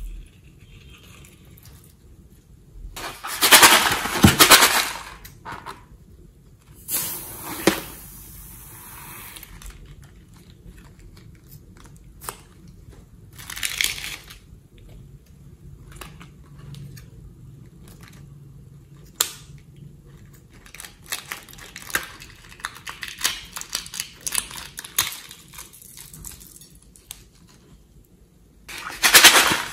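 Small plastic packets of sequins and glitter crinkling as they are squeezed and emptied into a glass bowl. The crinkling comes in bursts a few seconds apart, loudest about four seconds in and again at the very end, with a longer stretch of light crackling a little past the twenty-second mark.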